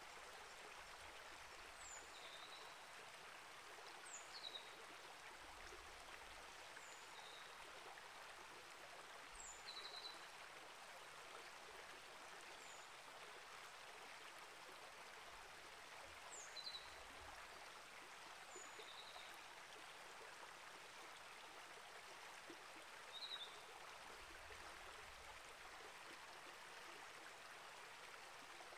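Small rainforest creek flowing: a faint, steady rush of water. Short, high, downward-sliding bird chirps come every few seconds over it.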